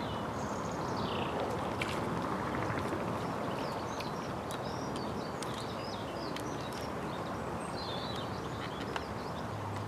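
Small birds chirping and twittering over a steady outdoor background hiss, with a few faint clicks.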